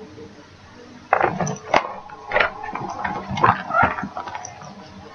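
Paper cross-stitch chart leaflets being handled and shuffled close to the microphone: irregular rustles and soft taps.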